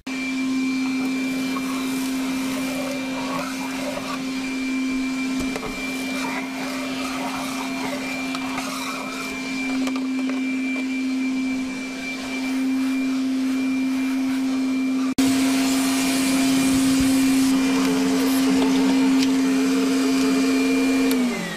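Makita battery-powered canister vacuum running steadily with a constant hum, a little louder from about fifteen seconds in. Near the end it is switched off and its motor winds down with a falling pitch.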